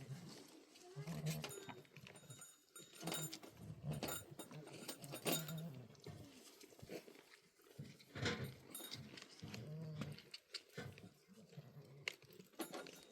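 Sheep and goats bleating, a string of short calls one after another, with scattered clicks and knocks.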